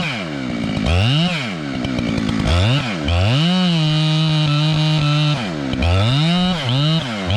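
Chainsaw engine revved up and down several times. It is held at full throttle for about two seconds in the middle, then blipped quickly several times near the end.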